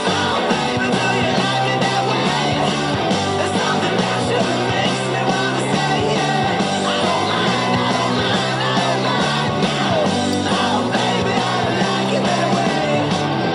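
A rock song with a singer, playing steadily and loudly.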